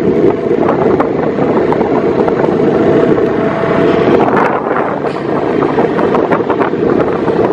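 A vehicle runs steadily along a road, its engine and tyre noise mixed with the rush of wind over the microphone.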